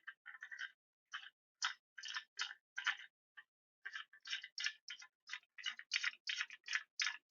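Hands working metal parts and tools on a bicycle engine kit's clutch, making a run of small, sharp metallic clicks at about three to four a second, unevenly spaced.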